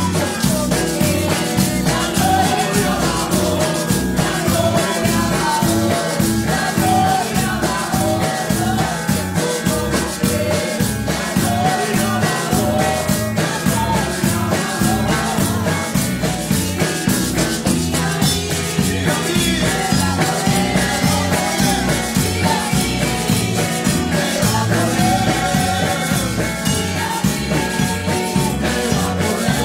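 Live church praise music: a woman singing lead into a microphone over electric bass guitar and a steady beat, with hands clapping along.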